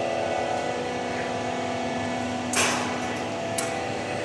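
IT5 roofing-sheet roll-forming machine running with a steady mechanical hum, broken about two-thirds through by a short, sharp burst of noise and, a second later, a single click.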